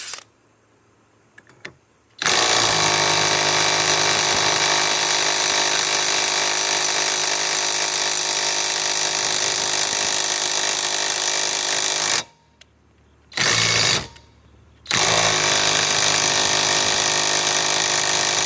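Flex FX1451 mid-torque cordless impact wrench hammering on a stuck nut that does not break loose. There is a long run of about ten seconds, a brief burst, then another long run.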